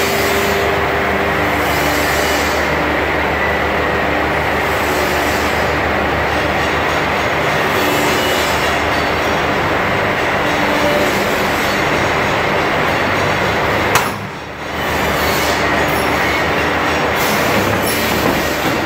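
Woodworking machinery of a horizontal finger-joint line running with a loud, steady mechanical noise. About fourteen seconds in there is a sharp knock, and the noise briefly drops for about a second before it resumes.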